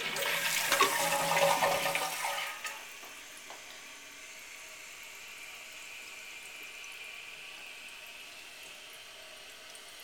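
2005 Eljer Titan two-piece toilet flushing: the tank water rushes out through the flush valve for the first two and a half seconds or so. Then the flapper closes and the fill valve refills the tank underwater with a much quieter, steady hiss of running water.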